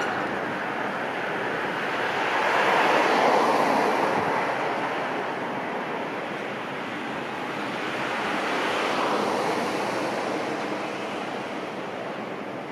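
Cars passing on a street, their tyre and road noise rising and fading twice, first about three seconds in and again about nine seconds in.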